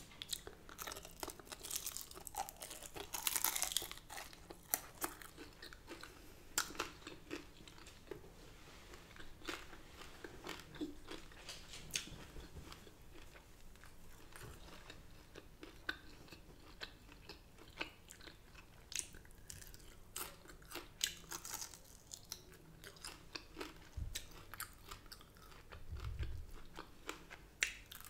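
A person chewing and biting crispy fried food, with many sharp crunches close to the microphone.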